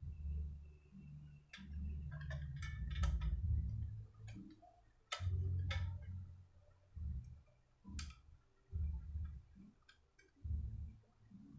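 Hands working small hardware while fitting an SSD into a laptop drive caddy: irregular sharp clicks and ticks of small plastic and metal parts, with dull low knocks and bumps against the work surface.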